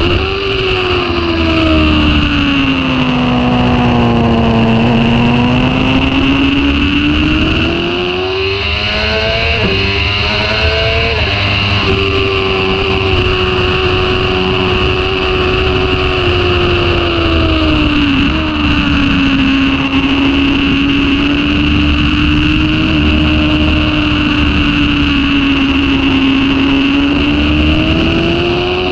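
Sport motorcycle's engine heard from onboard at speed on a track. The revs fall for the first few seconds, climb again, and break briefly for gear changes around ten seconds, then hold steady with a step down near eighteen seconds and rise again near the end, over a steady rush of wind noise.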